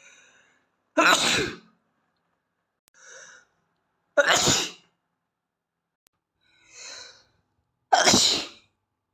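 A boy sneezing from allergies, three loud sneezes about three seconds apart, each preceded by a quieter wind-up breath.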